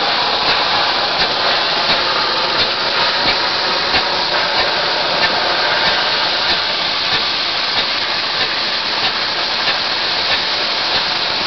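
Sprayed concrete blasting from the boom nozzle of an OCMER OCS-6896-D shotcrete rig: a steady, loud hissing rush of compressed air and concrete hitting the wall, with faint ticks a few times a second.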